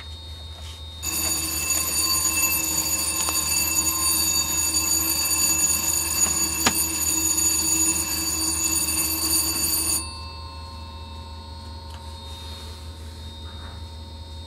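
Remanufactured AEM-7 electric locomotive in distress: a loud, steady high-pitched tone with several overtones starts about a second in and cuts off suddenly near ten seconds, over a constant low electrical hum, with a single click midway. Sounds like this signal serious faults that usually shut the locomotive down.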